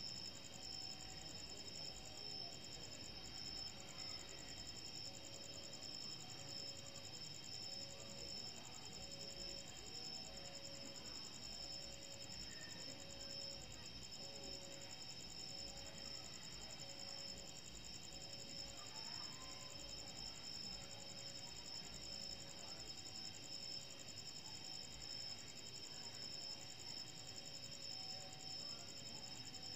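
Night insects chirring in a steady high chorus, with a faint lower tone pulsing a little more than once a second beneath it.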